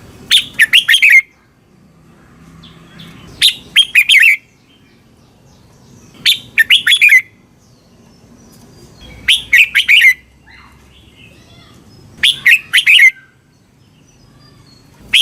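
Red-whiskered bulbul singing: a short phrase of several quick whistled notes, repeated five times about every three seconds, with a sixth starting at the end.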